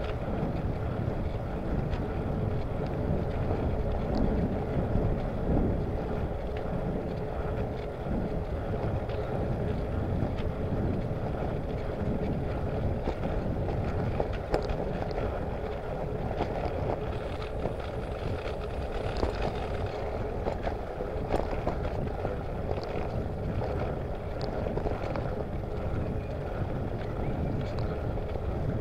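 Wind rushing over the microphone of a camera on a moving bicycle, with tyre and road noise and scattered small clicks and rattles.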